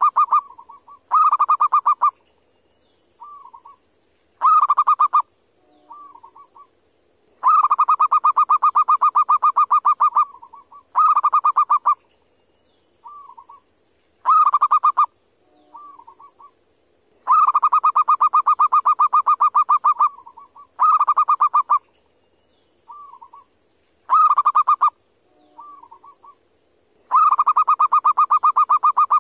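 Zebra dove (perkutut) calling: a long, rapid trill of staccato coos, followed by a couple of shorter bursts and a few soft single notes. The phrase repeats about every ten seconds, three times, over a steady high hiss.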